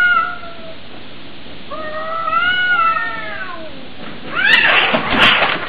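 Cats in a standoff yowling: a drawn-out yowl that rises and falls in pitch about two seconds in, then a louder, harsher screeching outburst about four and a half seconds in.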